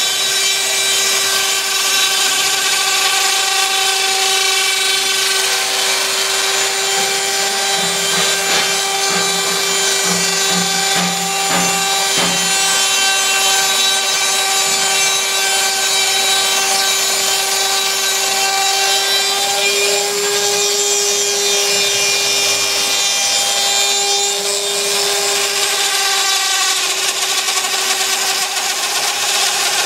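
Spindle motor of a Prusa i3 converted into a small CNC router, running at high speed with a steady whine while its bit rasps through the workpiece. Between about 8 and 13 s a lower hum and a run of clicks join in.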